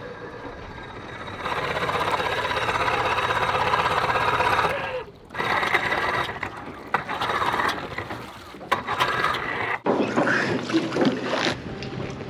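Evinrude 50 outboard motor being cranked over by its starter without catching, in a few separate attempts that each stop abruptly.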